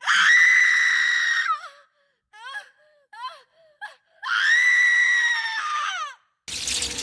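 A horror sound effect of high-pitched human screaming: two long screams of about two seconds each, held at one pitch and dropping off at the end, with three short falling yelps between them. A rushing noise begins near the end.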